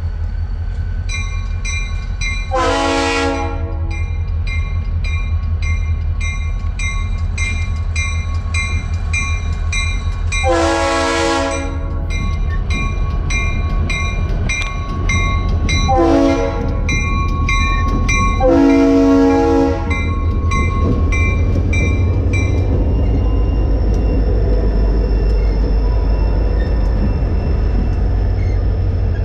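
Norfolk Southern diesel freight locomotive's air horn sounding the grade-crossing signal: long, long, short, long. A bell rings steadily about twice a second until it stops about three quarters of the way in. The diesel engines rumble steadily underneath as the locomotives and freight cars pass close by.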